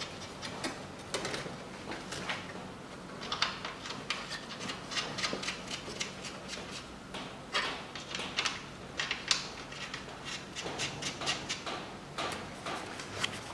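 Small metallic clicks and scraping as the strut's top-mount nuts are run onto their studs by hand and tool, in an irregular patter with a quicker run of clicks midway.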